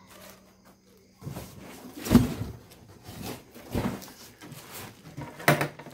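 Handling noise from a knapsack sprayer's shoulder strap and buckle being worked by hand: rustling and scattered knocks, the sharpest about two seconds in and another near the end.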